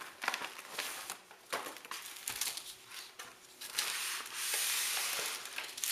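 Plastic MRE bag and ration pouches crinkling and rustling as they are handled, with sharp crackles throughout. About four seconds in comes a longer, steady rub of packaging sliding against packaging.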